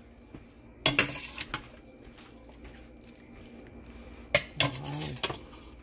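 A serving utensil clinking against a ceramic bowl: one sharp clink with a few lighter taps about a second in, and another sharp clink past the four-second mark, with quiet room tone between.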